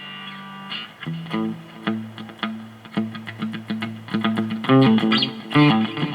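Electric guitar with P90 pickups, a Telecaster-style semi-hollow body, played through an amp: a chord rings out, then picked single notes and short chord figures that get busier and louder near the end, with a sharp Tele tone.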